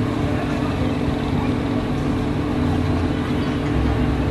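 Steady, even mechanical drone of a spinning chain swing carousel's drive machinery, with a constant low hum.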